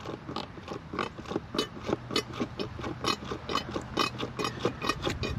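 Hand-operated gear oil pump working in rapid, regular strokes, about three to four a second, forcing 80W90 gear lube up into an outboard's lower unit through the drain hole.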